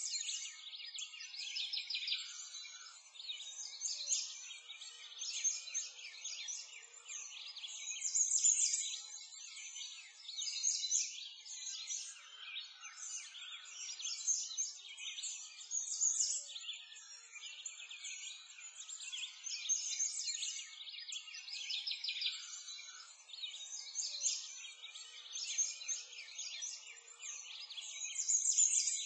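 Many songbirds chirping and singing together in a dense, unbroken chorus of high, quick notes, with louder phrases every few seconds.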